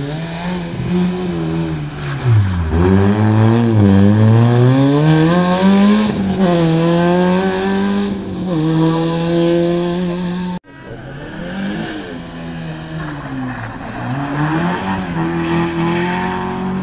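Rally car engines revving hard through a hairpin. The pitch falls low, then climbs in steps with two gear changes as the car pulls away. After an abrupt cut about ten seconds in, a second car's engine dips and then revs up again into the bend.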